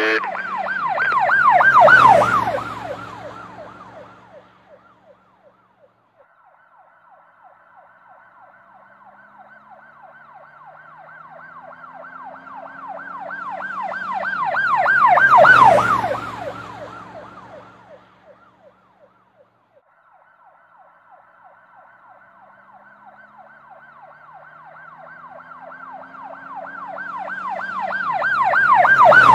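Emergency vehicle siren sound effect passing by three times, its tone sweeping rapidly up and down. Each pass grows louder, peaks about two seconds in, near the middle and at the very end, then fades with a drop in pitch as it goes by.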